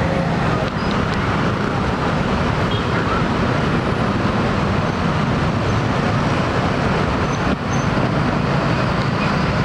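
Steady noise of dense, slow-moving street traffic: many motorcycles and cars running close by, with no single vehicle standing out.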